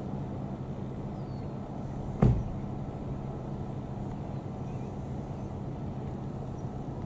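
Airbus H125 police helicopter flying past, its three-bladed main rotor and single turboshaft engine making a steady drone, with a brief thump about two seconds in.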